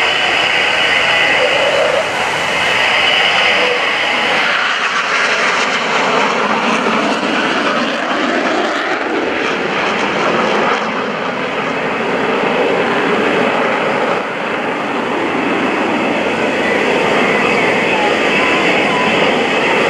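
Blue Angels F/A-18 Hornet jet fighter flying past, a loud, steady rushing jet noise from its twin turbofan engines.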